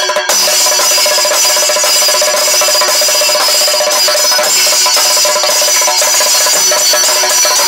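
Thayambaka ensemble of chenda drums beaten with sticks in a loud, very fast, unbroken roll, with ilathalam hand cymbals ringing over the drums.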